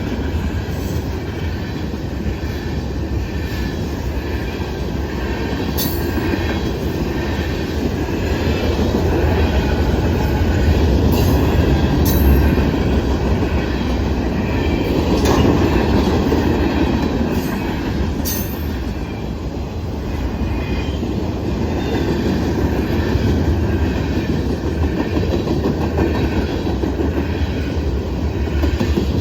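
Freight cars of a long Norfolk Southern manifest train rolling past a grade crossing: a continuous rumble of steel wheels on rail with rhythmic clicking over the joints and a few brief sharp high sounds from the wheels.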